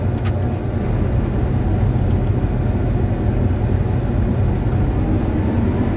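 John Deere combine running steadily, a low, even hum, with one short click just after the start.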